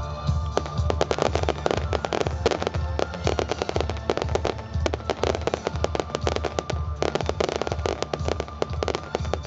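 Fireworks going off in rapid volleys, dense pops and bangs many times a second as rows of comets launch and shells burst, over music with a pulsing low beat.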